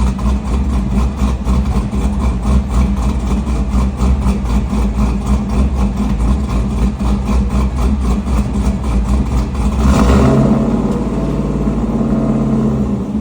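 Pickup truck engine running with a steady low rumble, rising into a louder rev about ten seconds in and then holding at a higher, steadier pitch.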